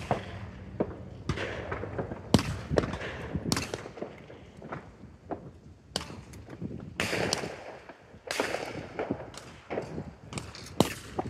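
Shotgun reports from other shooters around the sporting clays course: about ten sharp cracks at irregular intervals, some louder and nearer than others, each trailing a short echo.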